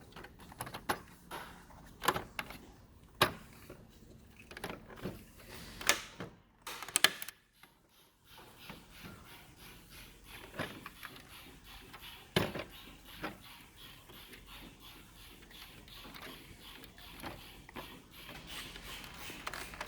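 Irregular light clicks and taps of hand work with small tools and parts, with a short silent gap about seven seconds in.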